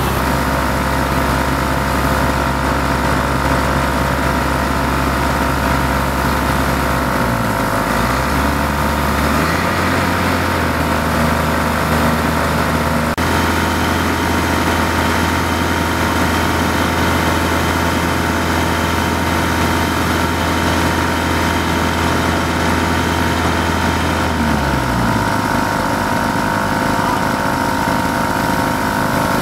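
Engine of a fire-fighting water pump running steadily while feeding a hose, under a hiss of spraying water. Its speed shifts about a quarter of the way in and drops lower near the end.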